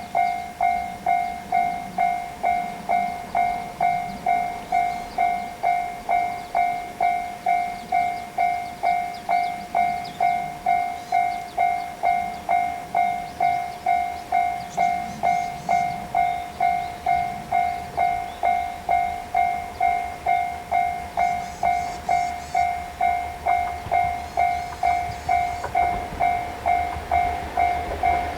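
Japanese railway level crossing warning bell ringing its 'kan-kan' at a steady pace of about two strokes a second. A low rumble grows near the end.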